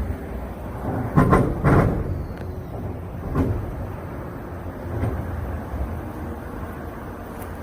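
A vehicle's wheels bang over a steel rail-type bridge expansion joint, two loud thumps about half a second apart as the axles cross, then a lighter knock a couple of seconds later, over a steady traffic rumble. This banging is the noise that led to the joint being replaced.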